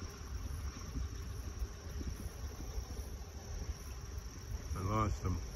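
A steady high-pitched insect chirring over a low rumble. A brief voice sound comes near the end.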